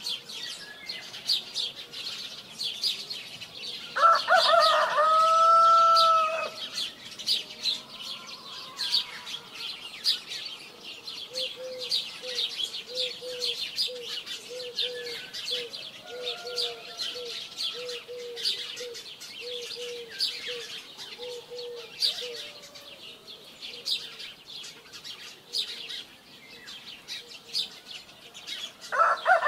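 A rooster crows once, a long drawn-out call about four seconds in, over continuous high chirping of small birds. In the middle there is a run of short, low calls at about two a second.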